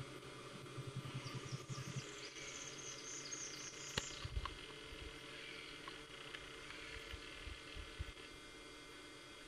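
Faint swamp birdsong: a rapid, high twittering phrase from about one to four seconds in, with softer calls from other birds. A sharp click comes about four seconds in, followed by a few low thumps.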